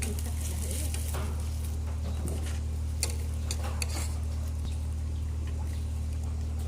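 Utensils clicking against dishes a few times during eating, the sharpest clicks about three and four seconds in, over a steady low hum.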